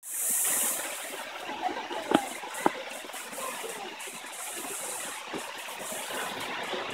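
Waterfall rushing: a steady roar of falling water, with two sharp clicks a little over two seconds in, half a second apart.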